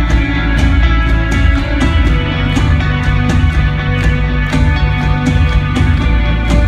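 Live rock band playing loud, with a steady drum beat and sustained guitar chords.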